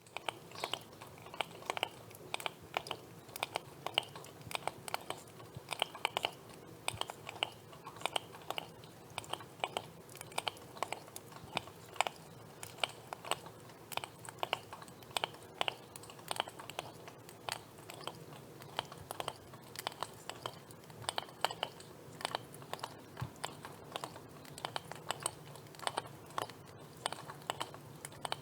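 Lobster making irregular clicking and crunching sounds, several a second, over a faint low hum.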